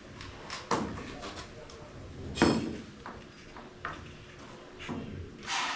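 Scattered knocks and clatters of hand tools and materials during building work: four or five separate sharp knocks, the loudest about two and a half seconds in, and a short hissing scrape near the end.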